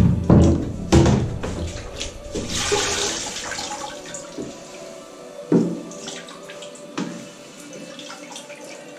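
Grouting tools, a float and then a sponge float, being rinsed and scrubbed in a grout-washing bucket with a grid insert: water sloshing and splashing. A few knocks of the tool against the bucket, loudest in the first second.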